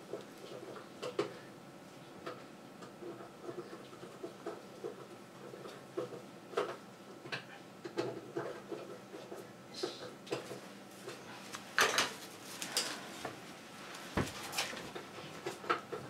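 Irregular small clicks, knocks and clatters of a top-loading washing machine being taken apart by hand, as plastic parts and tools are handled. The clatter is loudest in a cluster about twelve seconds in, followed by a dull thump.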